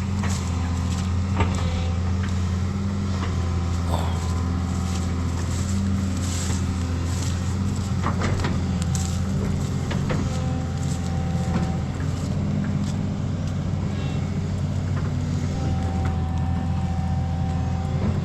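Backhoe's diesel engine running steadily under work, a constant low drone, with a few short whining tones and scattered knocks and clanks.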